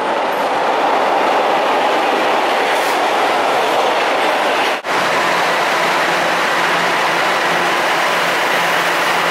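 Subway train running along the track through an underground station, a steady rumble of wheels on rail. About halfway through, the sound drops out for an instant and comes back as a steadier hum with faint held tones.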